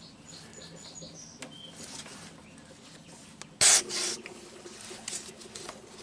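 A gloved hand handles an engine's oil filler cap, with faint squeaks and rubbing. About three and a half seconds in comes a short, loud rush of noise, then a weaker one.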